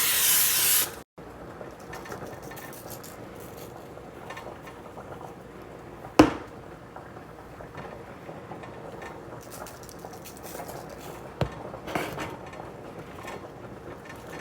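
Kitchen handling sounds: a loud hiss lasting about a second at the start, then occasional knocks of kitchenware, the sharpest about six seconds in and a lighter one with some clatter around eleven to twelve seconds.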